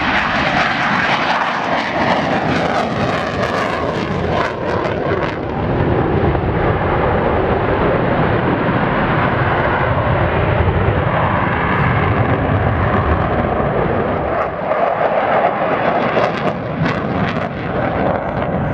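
F-16 fighter's single jet engine at high power during a display pass: a loud, steady roar with bouts of crackle a few seconds in and again near the end.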